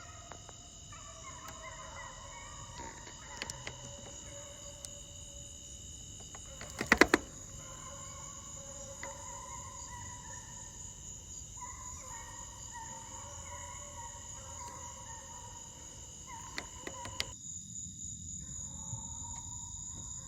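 Steady chorus of insects, with high, even whining tones that hold throughout and fainter wavering tones lower down. About seven seconds in comes a quick cluster of sharp clicks, louder than anything else.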